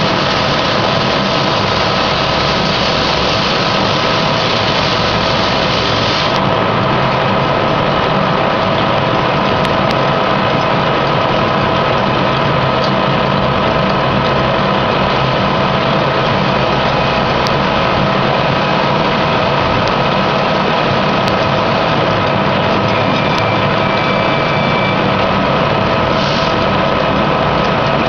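Landis 2½-inch Model A threading machine running, hollow-milling a workpiece: a steady machine hum with several held tones. A high hiss over the top stops abruptly about six seconds in.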